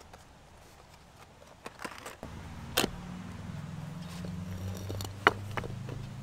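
An engine running, a low steady hum that sets in about two seconds in, with two sharp clicks over it.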